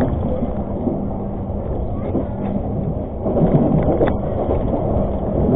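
Argo Parahyangan passenger train running along the track: a steady rumble with light clicks and a steady low hum, swelling louder a little after three seconds in.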